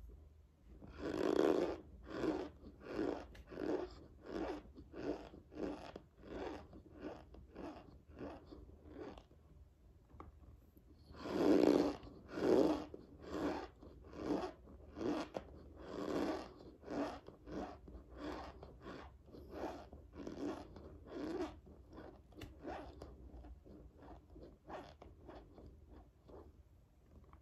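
Close-up chewing of a mouthful of dry cornstarch: a crunching chew repeated about one and a half times a second. It pauses briefly about ten seconds in, then starts again with a couple of louder bites.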